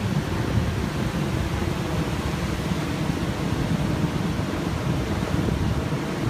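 Steady low rushing noise of wind buffeting the microphone, mixed with ocean surf.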